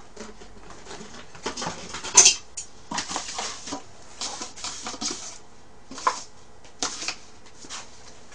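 Irregular clattering and rustling of dishes and paper food packaging being handled at a table, in a series of short sounds, the loudest about two seconds in.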